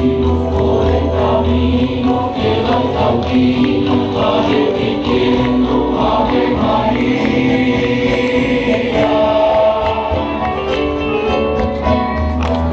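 Hymn music with a choir singing over instrumental backing.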